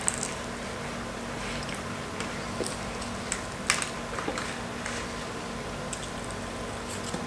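Crisp KFC fried chicken being torn apart by hand and eaten: scattered short crackles and clicks of the breading and chewing, one sharper crack about halfway through.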